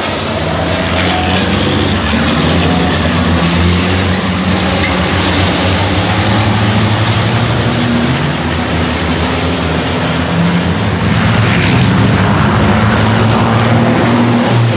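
Several racing trucks' diesel engines running hard together on the track, a loud, steady drone with several engine pitches overlapping and shifting.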